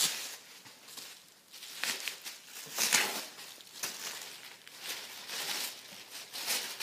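Wrapping rustling and crinkling in irregular handfuls as a wrapped painting is pulled out and unwrapped by hand. The loudest rustle comes about three seconds in.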